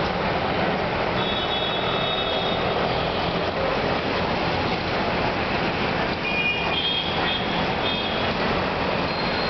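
Road traffic noise: a steady, loud roar of passing vehicles, with brief high-pitched tones sounding about a second in and again about six seconds in.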